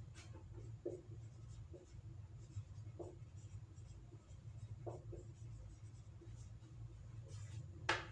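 Marker pen writing on a whiteboard: short, scattered strokes, the loudest one near the end, over a steady low hum.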